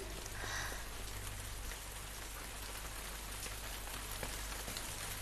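Steady, even hiss with a faint low hum beneath it.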